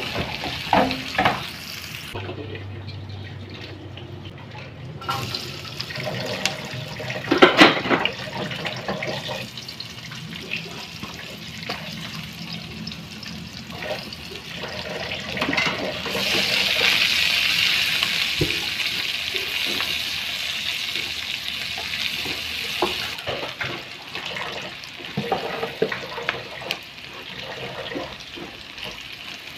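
Hot oil in a wok sizzling steadily as small anchovies fry, with the spatula scraping the pan now and then. The sizzle grows louder for several seconds about halfway through, once sliced shallots, garlic and red chilies are tipped into the oil to sauté.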